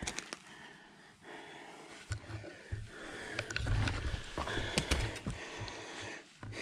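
Shoes scuffing on a dirt trail while a mountain bike is picked up and handled, with scattered clicks and rattles and irregular low knocks from the bike-mounted camera being jostled.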